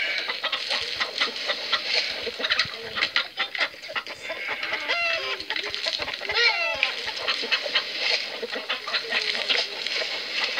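Chickens clucking in a steady run of short calls, with two louder, wavering calls about five and six and a half seconds in.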